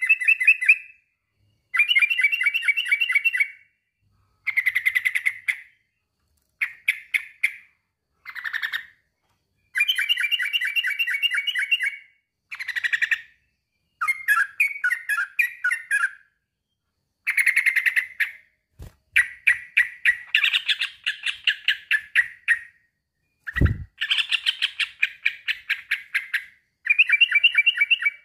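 Male yellow-vented bulbul (trucukan) singing in repeated phrases of rapid chattering notes, about one to two seconds each with short pauses, as a male calling a rival. Two low thumps come through, one about two-thirds of the way in and a stronger one a few seconds later.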